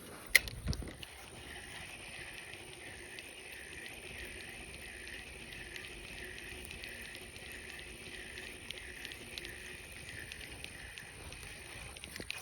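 A sharp click, then a fishing reel cranked steadily to retrieve the lure, its whir pulsing about twice a second and stopping about a second before the end.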